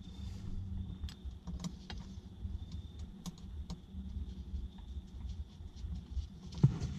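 Scattered light clicks and taps over a steady low hum.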